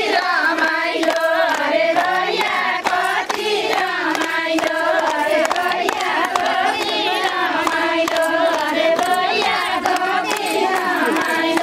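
A group of women singing a Nepali ratyauli folk song in chorus, with rhythmic hand clapping keeping the beat.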